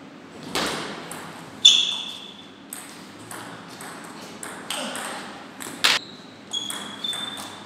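Table tennis rally: the ball knocks sharply and irregularly off the rackets and the table. A few short, high squeaks run among the knocks.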